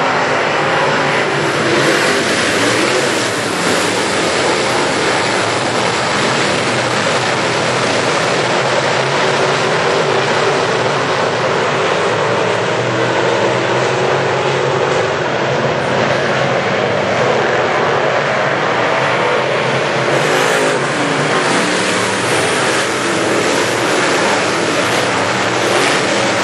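A field of GM Crate dirt late model race cars running together at racing speed, their crate small-block V8s making a loud, steady, unbroken drone.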